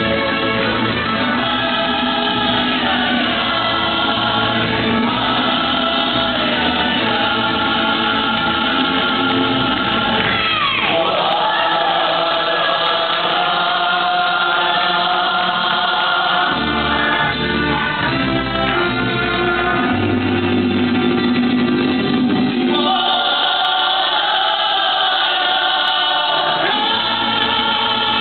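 Live mariachi band playing and singing, several voices together over guitars and violins. About ten seconds in, a long note slides down in pitch.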